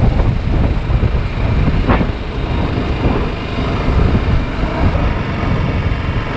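TVS Apache RR310 motorcycle on the move: wind rushes over the bike-mounted camera's microphone, gusting up and down, with engine and tyre noise underneath.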